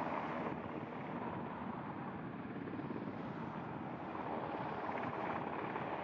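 Steady rushing noise of wind and sea water, with no distinct events.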